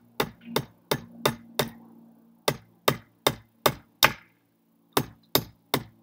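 Hammer striking a nail into the wooden roof of a bird feeder kit: quick, even blows about three a second, in three runs with two short pauses.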